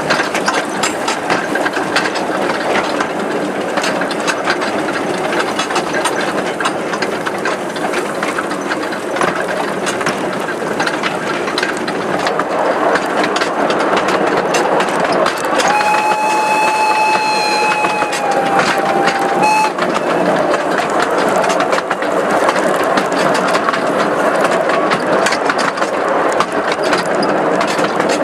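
Riding in a wooden carriage behind a 15-inch gauge steam locomotive: a steady clatter and rattle of wheels and coaches on the track. About halfway through, the locomotive's steam whistle sounds one long note for about four seconds, its pitch dipping slightly just before it stops.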